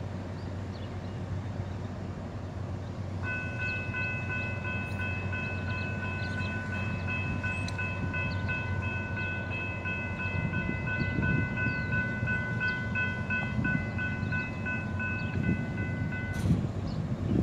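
Nathan K5HL five-chime air horn on an approaching GE ES44C4 diesel locomotive, held as one long chord for about thirteen seconds, starting a few seconds in. A low rumble from the train runs underneath and grows a little louder toward the end.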